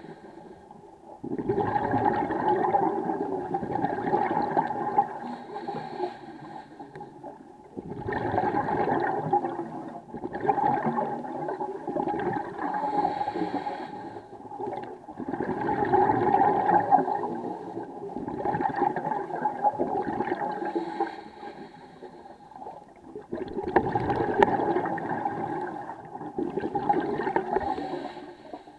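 Scuba diver breathing through a regulator underwater: exhaled air bubbling out in bursts of two to four seconds, repeated several times, with quieter inhalations between.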